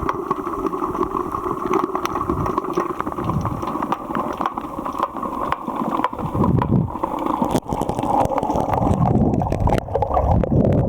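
Muffled rushing and gurgling of water heard underwater during a dive, with low surges that come and go and scattered faint clicks.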